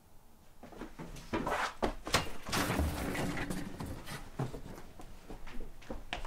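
Several people scrambling to their feet and hurrying through a doorway: a quick run of thumps, knocks and footsteps, busiest in the first half and lighter taps after.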